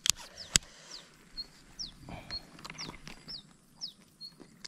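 A songbird calling over and over with short, high, falling whistles, two or three a second, between brief high piping notes. Two sharp clicks in the first half-second are the loudest sounds.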